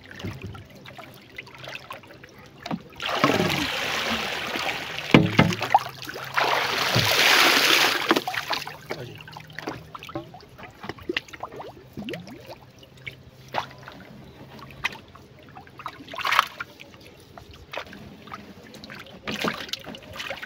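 Water splashing and trickling as a bamboo fishing trap is pulled through the water alongside a wooden canoe, with two louder splashing bursts of a second or two each a few seconds in, and scattered knocks of the line and boat being handled.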